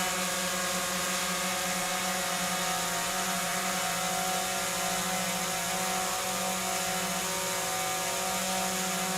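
Electric sump pump running steadily while pumping water out during a timed test, a constant motor hum over an even hiss.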